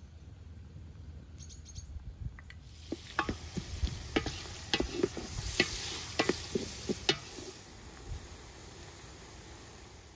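Chopped onions frying in hot oil in a metal pot over a wood fire, sizzling while a wooden spoon stirs them, knocking and scraping against the pot. The sizzle swells about three seconds in and dies down near the end.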